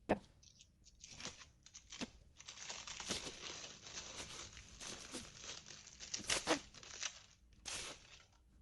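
Packaging being crinkled and torn open while a small item is unwrapped, a rustling stretch in the middle with a few sharp clicks and knocks.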